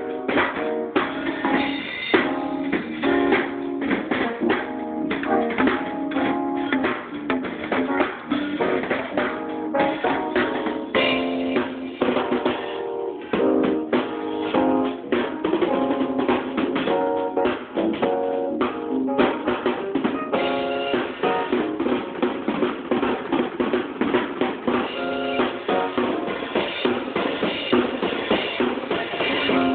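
Drum kit played fast and busy over a gospel song's backing music, with dense kick and snare hits.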